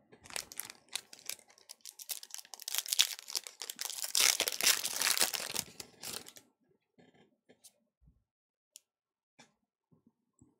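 Foil Pokémon booster pack wrapper crinkling and being torn open, loudest in the middle of the tear and stopping after about six seconds. A few faint clicks follow as the cards are handled.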